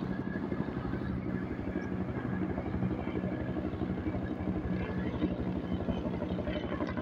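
T129 ATAK attack helicopter flying overhead: a steady, fast rotor chop with a low, even engine tone underneath.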